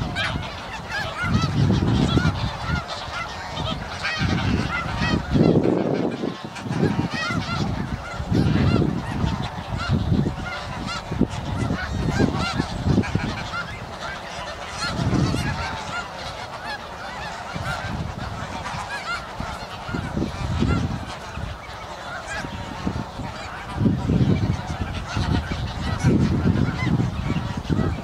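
A flock of snow geese calling continuously: a dense, overlapping chorus of short honks. Irregular low rumbling swells every few seconds are the loudest part.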